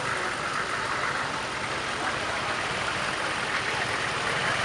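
Engines of slow-moving parade vehicles idling and running steadily at low speed.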